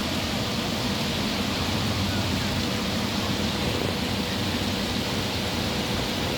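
Heavy rain pouring down in a steady, loud hiss, with a low steady hum beneath it.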